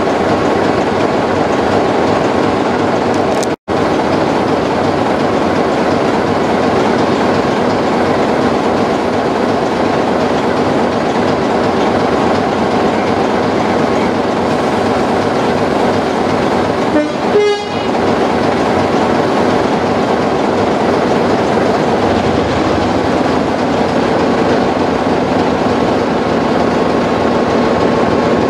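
Class 33 diesel locomotive's Sulzer eight-cylinder engine running steadily, heard close up from the side of the loco. The sound cuts out for an instant a few seconds in, and a short high-pitched sound stands out about two-thirds of the way through.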